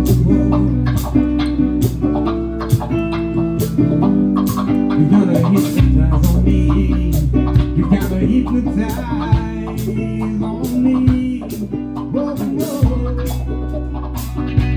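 Background music: a guitar-led song with a steady beat and bass line, in an instrumental passage.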